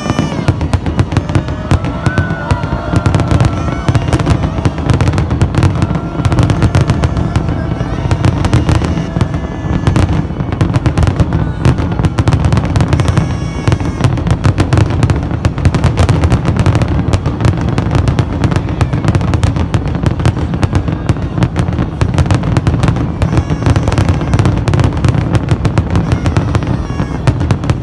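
Aerial fireworks going off in a dense, continuous barrage: rapid overlapping bangs and crackles over a constant low rumble.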